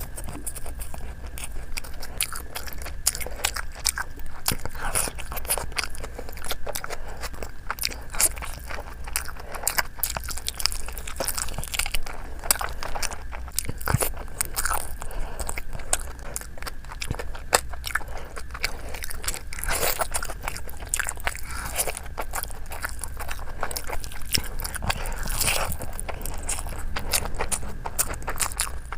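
Close-miked eating: a person chewing and biting into food, a dense, irregular run of crunchy and wet mouth clicks, over a faint steady hum.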